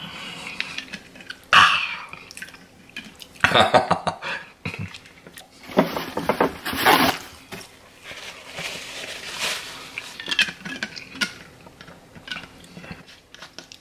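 A person eating and handling a plate and a hot sauce bottle: scattered knocks, clinks and rustles, with a few louder bursts at irregular intervals.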